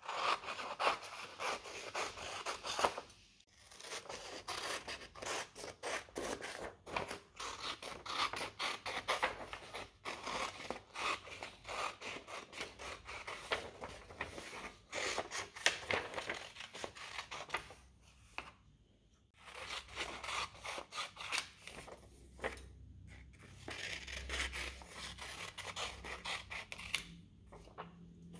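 Scissors cutting through a printed paper pattern sheet: long runs of quick snips broken by a few brief pauses.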